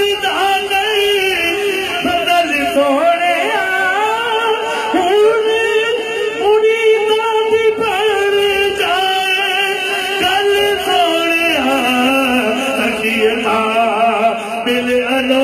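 A voice singing a slow devotional chant, with long held notes that bend and waver in pitch. About twelve seconds in, the melody drops to a lower note.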